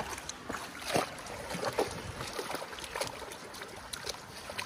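A dog splashing and wading through a muddy bog pool, with irregular sloshing splashes of water and mud.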